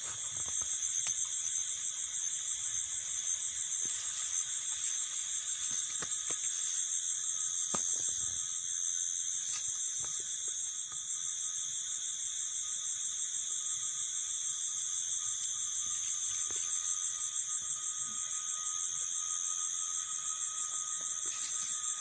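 Night insect chorus, crickets trilling steadily in a high, fine-pulsed buzz, with a lower continuous hum underneath.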